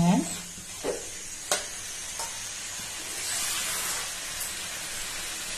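Chicken masala frying and sizzling in an aluminium pan, with a few light knocks of a steel spoon against the pan in the first couple of seconds.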